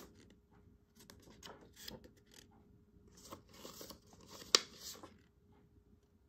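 Handwritten paper note cards being shuffled and handled, rustling and flapping in short irregular bursts, with one sharp snap of paper about four and a half seconds in.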